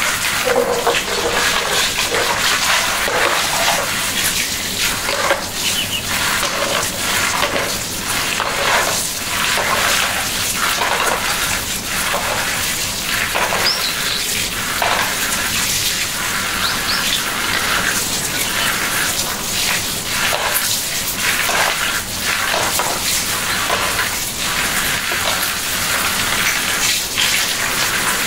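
Water splashing and sloshing in irregular bursts over a steady hiss of moving water.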